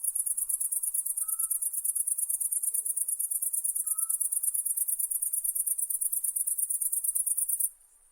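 Night insect trilling: a high-pitched, rapid, evenly pulsing call that holds steady, breaks off briefly near the end, then starts again.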